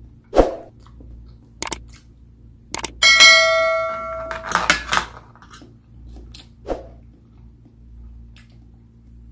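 A couple of quick clicks followed by a bell-like ding that rings for about a second and fades: the sound effect of a YouTube subscribe-button and notification-bell animation.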